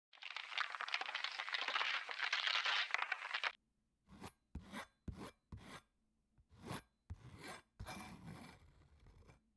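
Foley scraping: a continuous rasping rub for about three and a half seconds, then it stops abruptly and is followed by about eight short, separate scrapes.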